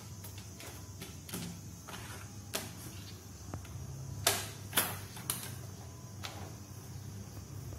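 Scattered taps and knocks as a cat paws at a toy dangling against a cabinet door and jumps down, with three louder knocks close together about four to five seconds in.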